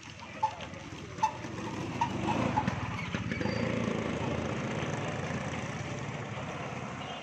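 Small motorcycle engine running, growing louder a couple of seconds in and slowly easing off toward the end, with a few sharp clicks in the first three seconds.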